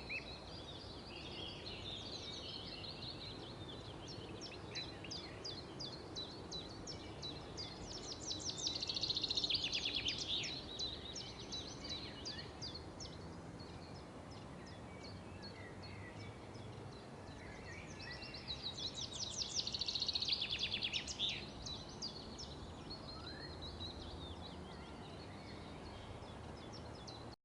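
Wild songbirds calling: quick series of short high notes repeat throughout, with two loud rapid chattering trills, one about eight seconds in and one about nineteen seconds in.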